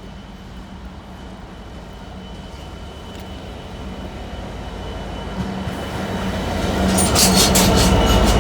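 Class 66 diesel locomotive hauling a container freight train, drawing closer, its engine drone growing steadily louder. From about seven seconds in, sharp wheel clacks over rail joints join in.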